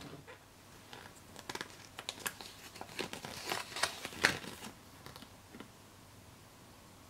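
A capsule toy's paper instruction leaflet crinkling as fingers unfold and handle it: a run of irregular rustles and crackles, loudest a little past the middle.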